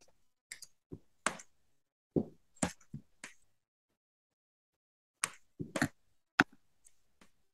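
Computer keyboard keys clicking as someone types: about a dozen and a half short, irregular keystrokes in two bursts, with a pause of about two seconds in the middle.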